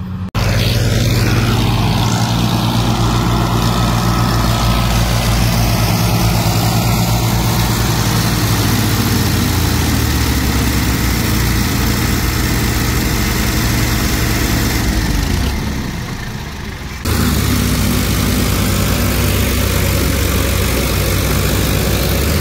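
Diesel engines of two Farmtrac tractors running hard under load, one towing the other and its loaded trolley with a rope. The steady engine note drops in pitch about halfway through and dips briefly before coming back loud near the end.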